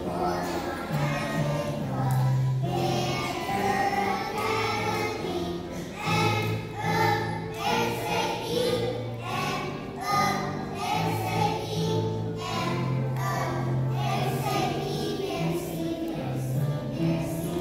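A group of young children singing a song together in unison over instrumental backing music.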